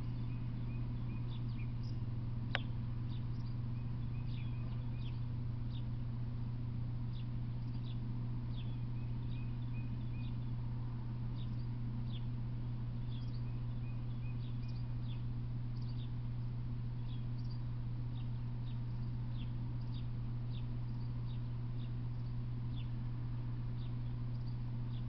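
Small birds chirping, short high chirps every second or so, over a steady low hum, with one sharp tick about two and a half seconds in.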